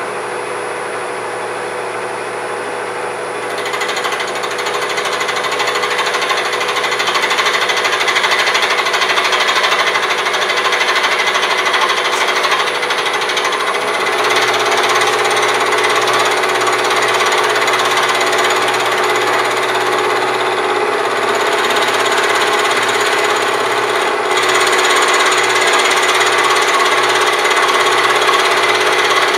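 Milling machine with a 3/4-inch roughing end mill taking a five-thousandths cut across cast iron: a steady, rattling cutting noise over the running machine. It gets louder about three and a half seconds in as the cutter takes a full bite, and its pitch shifts slightly about fourteen seconds in.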